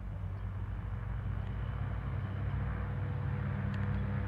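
Mooney M20 single-engine propeller plane's four-cylinder Lycoming IO-360 engine and propeller running at takeoff power, a steady low drone that grows louder as the plane approaches and lifts off.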